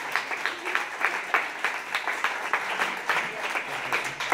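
Audience applauding: many people clapping hands in a dense, steady patter.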